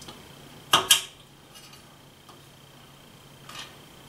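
Small metal hand tools clinking against the aluminum laser head and column: two sharp clinks about a second in and a fainter one near the end, as the head's mounting screws are tightened with an Allen wrench.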